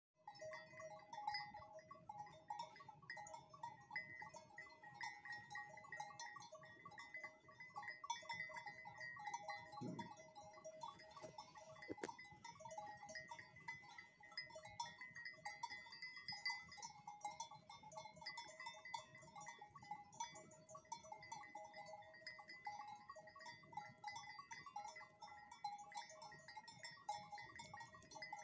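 Bells on a grazing flock of sheep clanking irregularly, several bell pitches jangling together.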